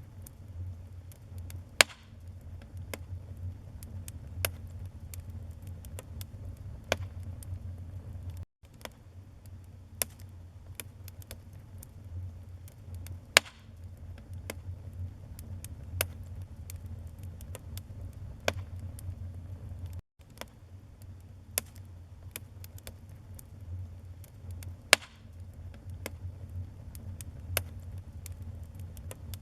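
Wood fire in a fireplace crackling: irregular sharp pops and snaps of varying loudness over a steady low rumble, the loudest pops about 2, 13 and 25 seconds in. The sound drops out for a split second twice.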